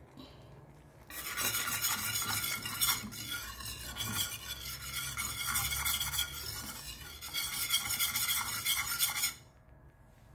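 Wire whisk beating a thin yoghurt sauce in a frying pan, with quick, continuous scraping strokes against the pan. The whisking starts about a second in and stops about a second before the end.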